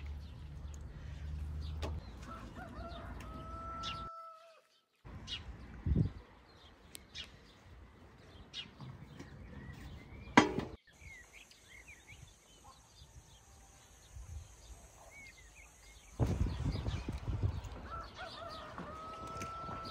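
Chickens clucking and calling with small birds chirping, across several short cuts between scenes. There is one sharp knock about ten seconds in.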